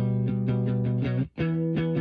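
Background music: guitar chords held over a steady beat, cutting out for a moment a little over a second in before a new chord comes in.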